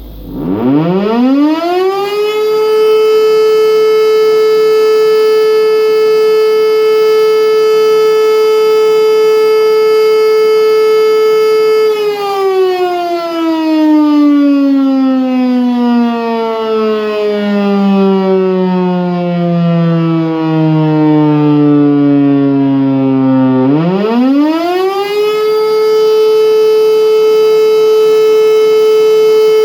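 E57 electromechanical motor siren sounding a test alarm. It spins up to a steady tone in about two seconds and holds it for about ten seconds. Then it winds down, slowly falling in pitch for about twelve seconds, before spinning up again and holding. Steady tones broken by wind-down pauses like this make up the German fire-brigade alarm signal.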